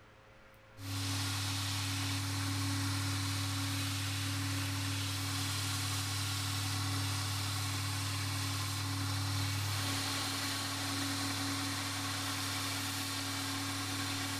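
Belt grinder running with a steady motor hum under a continuous hiss from its abrasive belt sanding a wooden knife handle. The sound sets in abruptly about a second in.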